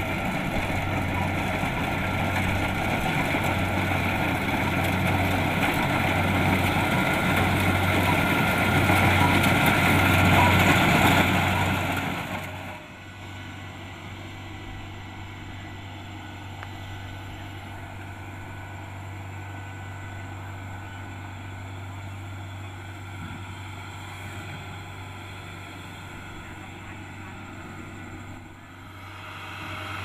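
Kubota DC-70 Plus combine harvester's diesel engine running under load while cutting rice, with a steady low hum, growing louder as the machine comes closer. About twelve seconds in it drops abruptly to a fainter, steady running sound.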